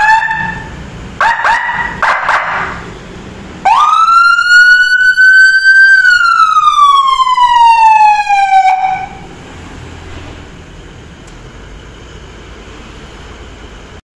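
Whelen electronic siren sounding: a quick rising chirp and a few short blips, then one long wail that climbs, peaks about halfway and glides back down before cutting off suddenly. A steady low background noise follows.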